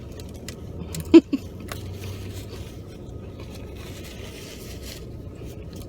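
Quiet eating sounds, chewing with a few small clicks, inside a car over a steady low hum. A short voiced "mm" comes about a second in.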